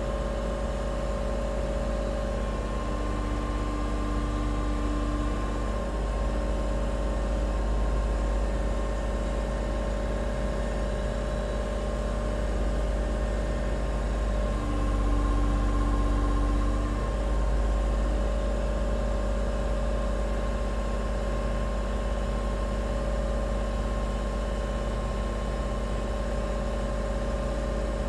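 A steady low mechanical hum, with a few higher steady tones joining it for a couple of seconds about three seconds in and again near the middle.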